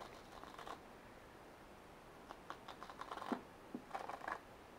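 Faint scattered clicks and rustles of small plastic craft containers being handled, coming in a few quick clusters, the busiest one in the second half.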